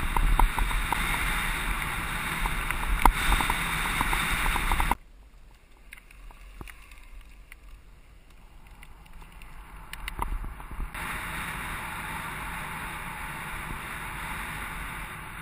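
Wind rush and rattle on a bike-mounted camera riding a bumpy grass track, with rapid ticking. About five seconds in it drops abruptly to a much quieter hiss on a smooth path. Steady wind noise rises again about two-thirds through.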